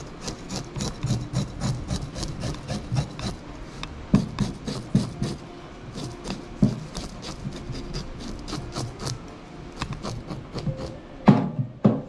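Kitchen knife scraping the small scales off a whole scorpionfish on a plastic cutting board, a fast run of short rasping strokes. Two louder sharp knocks come near the end.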